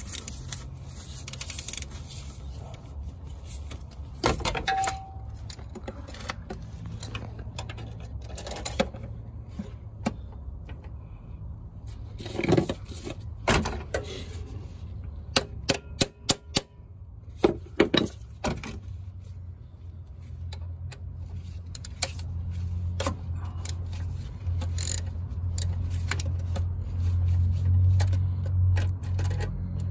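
Metallic clinks and clicks of a ratchet, socket and long extension being worked on a bolt, with a quick run of ratchet clicks about halfway through. A low steady hum underneath grows louder in the second half.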